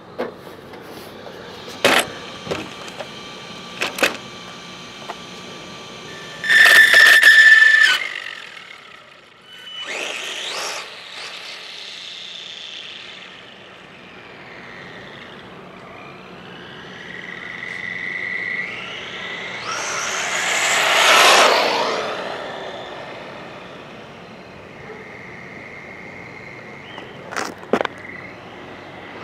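Brushless RC truck with a Castle 1415 motor passing on asphalt: a high-pitched motor whine with tyre noise rises as it comes near and falls away as it goes off. There is one short, very loud pass about a quarter of the way in, and a longer swelling pass that peaks about two-thirds through. A few sharp clicks come between the passes.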